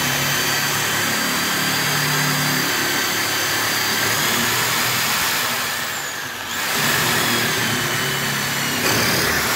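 A HiKOKI corded electric drill running steadily with a whine as a long homemade bit made from 8 mm rebar bores through a wooden window frame. The motor slows briefly about six seconds in under the load, then picks up again.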